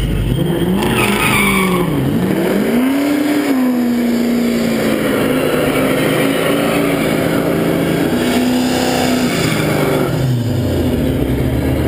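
Fox-body Ford Mustang doing a burnout: the engine revs up, dips briefly, then holds high revs for about six seconds with the rear tyres spinning and squealing. About ten seconds in the revs drop back toward idle.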